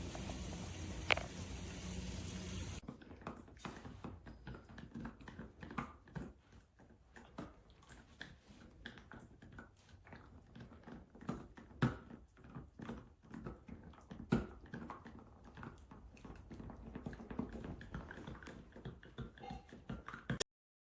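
A dog gnawing a hard nylon chew bone: many irregular clicks and scrapes of teeth on the toy. A steady hum with a couple of clicks comes first, for about three seconds.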